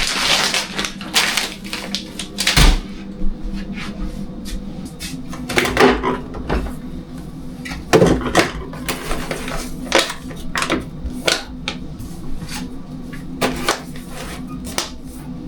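Irregular knocks, clicks and clatter of household objects being handled and set down during kitchen cleaning, over a steady low hum.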